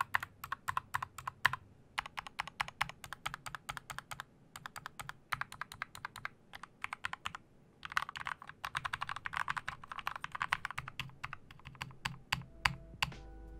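Typing on a Glorious GMMK mechanical keyboard with lubed Gateron Black linear switches and HyperX Pudding PBT keycaps: rapid keystrokes in bursts with short pauses, a fast flurry about halfway through, and a few single keystrokes near the end as music comes in.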